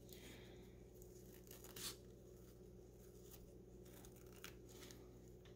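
Faint rustling of a ribbon and fabric being handled as the ribbon is threaded through a hole and knotted, with one brief louder rustle about two seconds in, over a low steady hum.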